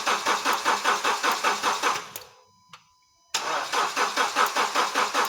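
Honda Step Wagon's R20A engine cranking on the starter without firing, in a steady rhythmic chug of about five beats a second. The cranking stops about two seconds in and starts again about a second later. This is a crank-no-start: the engine turns over but does not catch.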